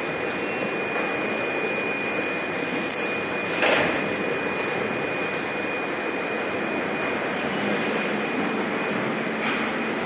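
Steady machinery noise of a nylon injection-moulding workshop, with a thin steady high whine, a sharp click about three seconds in and a short hiss just after.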